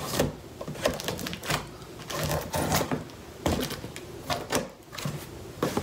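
Packing tape on a cardboard shipping box being slit open with a blade: an irregular run of scratchy cuts and clicks, with cardboard flaps rustling as they are pulled apart.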